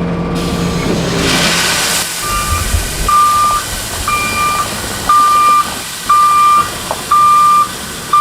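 Heavy-vehicle reversing alarm beeping about once a second, each beep about half a second long, over a low engine hum; the hum and a rushing noise fill the first two seconds before the beeps come in.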